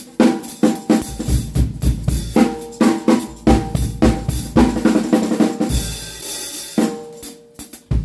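Drum kit played hard with sticks: snare, bass drum and cymbals in quick strokes, with a cymbal wash a little before six seconds in. A small tambourine with steel jingles, mounted on one drumstick, jangles along with the strokes. The playing breaks up into a few last scattered hits near the end.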